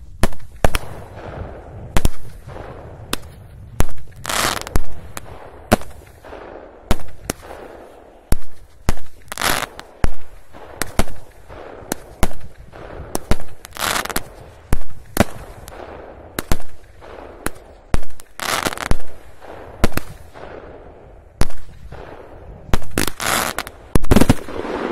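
Fireworks salute battery firing: a long, irregular series of loud, sharp bangs, with a longer noisy burst about every four to five seconds.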